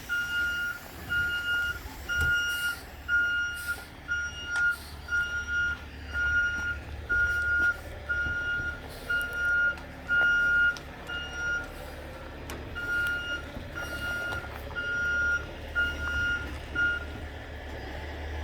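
Heavy tow truck's backup alarm beeping about twice a second while it reverses, over the low steady rumble of its engine. The beeping breaks off briefly about two-thirds of the way through and stops near the end.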